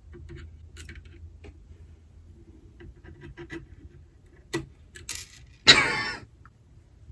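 Small metallic clicks and taps of a magnetic screwdriver and a tiny M.2 screw against the motherboard's SSD standoff, as the screw keeps bouncing out instead of seating. About six seconds in there is a louder, half-second rasp.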